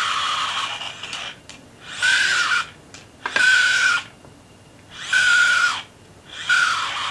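Electric motor spun at high speed as a generator in short spurts: a high whine over hiss, about one spurt every one and a half seconds, each dropping in pitch as it stops.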